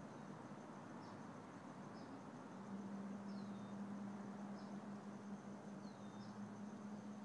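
Faint outdoor ambience: a steady hiss with a thin high whine, short high chirps about once a second (a couple sliding downward), and a low steady hum that comes in a little over a third of the way through.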